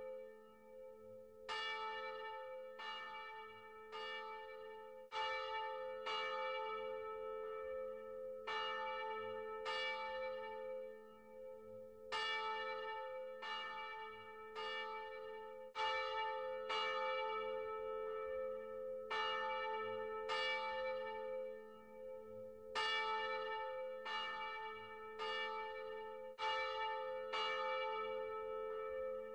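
A single church bell tolled over and over, about one stroke a second with a few short pauses, each stroke ringing on so that its low hum carries between strikes.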